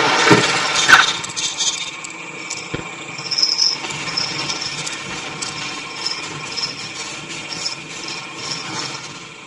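Cat's claws scraping at a wall, a steady rough scraping with a few louder knocks in the first second and short high squeaks repeating about every half second after that.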